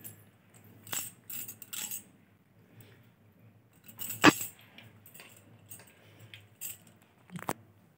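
Metal leash chain clinking and rattling in short bursts as a chained monkey shifts about, with the loudest clank about four seconds in.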